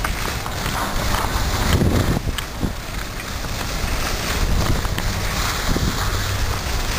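Wind buffeting the microphone of a camera carried by a downhill skier, mixed with the skis sliding and scraping over packed snow.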